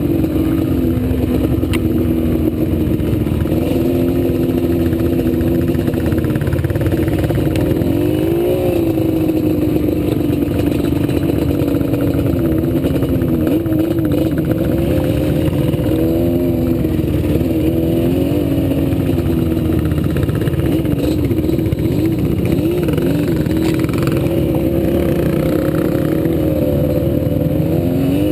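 ATV engine running under way, its pitch rising and falling again and again as the throttle is worked.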